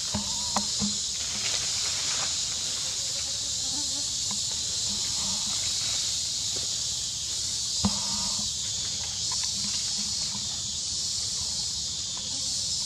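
Steady, high-pitched drone of an insect chorus, with a few faint clicks and one sharper click about eight seconds in.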